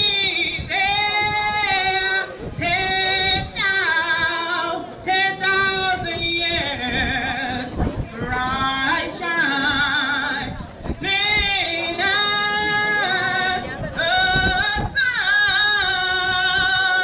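People singing in drawn-out phrases with held notes, each phrase a second or two long with short breaks between them.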